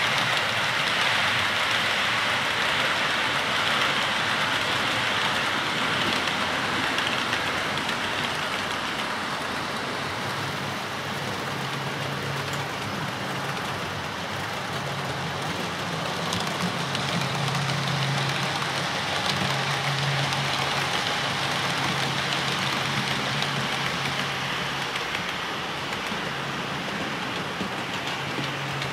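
OO-scale model trains running on the layout track: a steady hiss of wheels and motor, strongest in the first several seconds as the InterCity HST model passes. From about ten seconds in, a low droning hum comes and goes.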